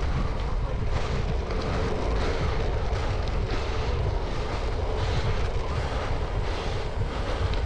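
Steady wind rush and low rumble on the microphone of a camera riding on a bicycle, mixed with bicycle tyres running over a gravel road.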